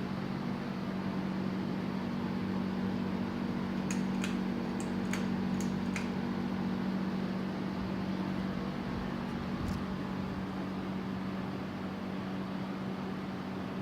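Steady low electrical hum of a ceiling fan's motor, with a handful of light clicks about four to six seconds in and one more near ten seconds.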